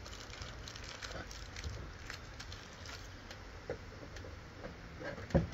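Old adhesive decal being peeled and scraped off a car's body by hand: faint scattered crackling and scraping, with a sharper knock near the end.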